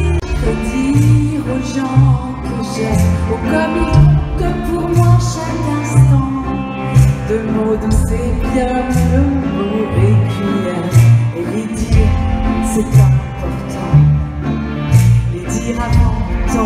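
Live pop music over an arena sound system, heard from the crowd, with drums, cymbals and a moving bass line.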